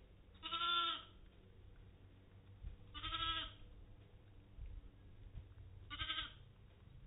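Katahdin sheep, a ewe with her newborn twin lambs, bleating: three short pitched bleats about three seconds apart.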